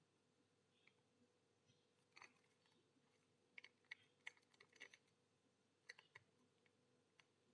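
Faint crinkling and clicking of a small plastic zip-lock bag and the shampoo sachet inside it as they are handled, in scattered small crackles that bunch together around the middle. A faint steady hum lies underneath.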